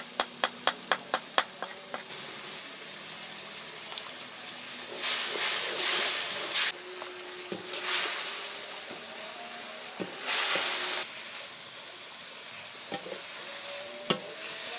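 Stir-frying: about eight quick taps of a spatula against a bowl, then the spatula scraping in the pan with three loud bursts of sizzling oil a few seconds apart.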